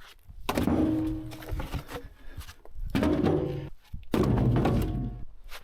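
Tractor engine running while the loader works, with heavy thunks of the bucket and dirt, heard in short clips that cut off abruptly twice.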